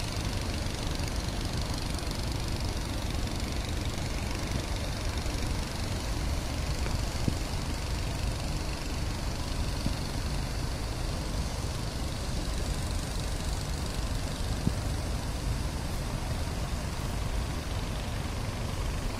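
Sea surf breaking on a beach: a steady noise with a strong low rumble.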